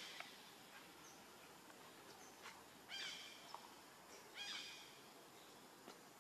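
Two short, high-pitched animal calls about a second and a half apart over a faint, quiet outdoor background.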